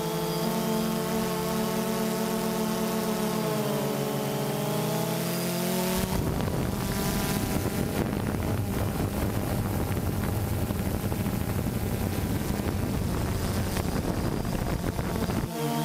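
Camera drone's propellers whining in a stack of steady tones, the pitch dropping about four seconds in. At about six seconds it gives way to a rough rushing noise, and the whine returns near the end.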